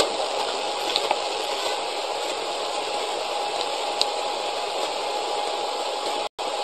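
Steady hiss of a low-quality camera's recording with a faint steady tone, broken by a few soft clicks and a very brief dropout near the end.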